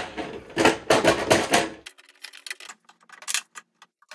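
Quick clicking and clattering of hard plastic parts being handled and worked on, dense for about two seconds, then only a few faint clicks.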